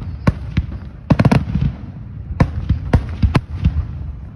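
Aerial fireworks shells bursting in a series of sharp bangs: a tight cluster about a second in, then single reports roughly a third of a second apart, over a continuous low rumble.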